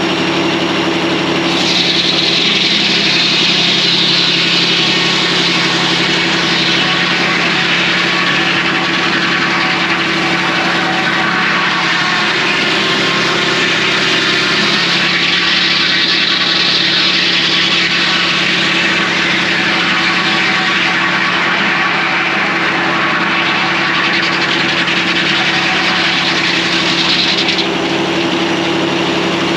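Circle sawmill running on its diesel power unit, a steady engine note throughout, with the circular saw blade cutting through a hemlock log as a loud hiss that comes in about a second and a half in, swells and eases during the cut, and stops a couple of seconds before the end.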